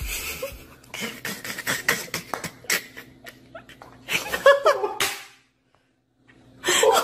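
Sharp clicks of a putter striking golf balls and balls knocking together, then a person laughing in short quick bursts about four seconds in and again near the end.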